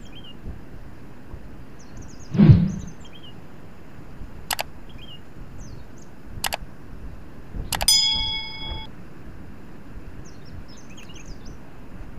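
Steady wind noise with faint bird chirps. A low thump comes about two seconds in, then two sharp clicks, and near eight seconds a small metal object clinks and rings briefly.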